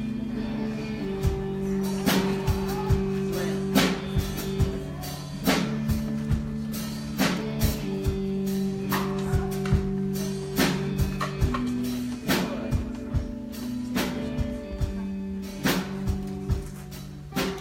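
Instrumental music with guitar and drums: held chords that change every second or two under a steady drum beat with cymbal hits.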